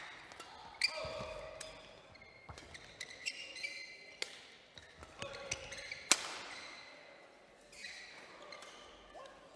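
Badminton rally: sharp smacks of rackets hitting the shuttlecock every second or two, the loudest about six seconds in, with short squeaks of shoes on the court floor.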